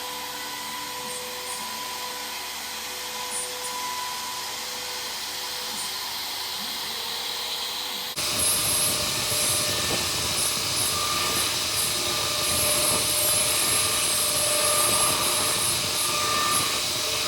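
DIY CNC router spindle running with a steady high whine as it machines aluminium composite (ACM) panel. About halfway through, the sound changes abruptly to a louder, rougher cutting noise with a different whine.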